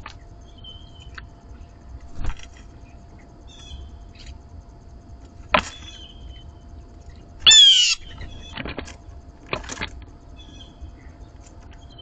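Birds at a feeder: scattered short knocks and flutters, a few faint high chirps, and one loud, harsh half-second bird call about two-thirds of the way through.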